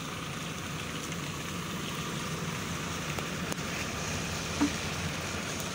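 JCB backhoe loader's diesel engine running steadily, under a steady rushing noise. A single short knock about four and a half seconds in.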